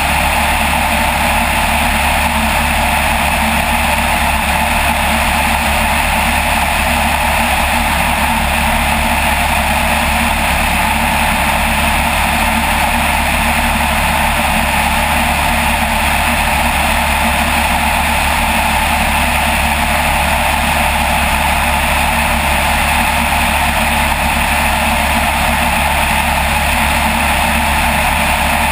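Single-engine light aircraft in level flight, its engine and propeller making a loud, steady drone with no change in pitch or power.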